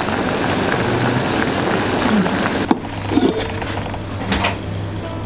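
Dry-roasted beans bubbling hard in a pot on the stove, a dense sizzling hiss, as they are simmered to draw out stock. About two and a half seconds in it cuts to a quieter steady low hum with a few faint clicks.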